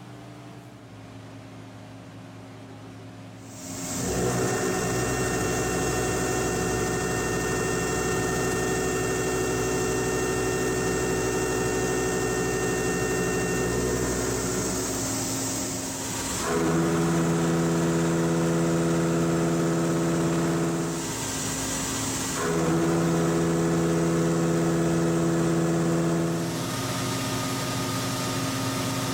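CNC machine tool cutting metal: the spindle and cut start about four seconds in as a steady whine of several held tones with a hiss over it. Two louder cutting passes follow in the second half, each lasting about four seconds.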